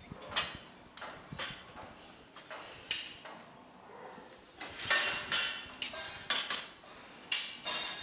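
Steel headlock feed barrier clanking and rattling in irregular metal knocks as cows move their heads in the stanchions while feeding, the knocks coming thicker and louder in the second half.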